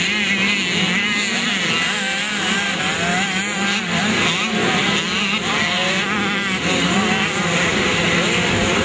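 Motorcycle engines running and revving, their pitch rising and falling over a steady drone.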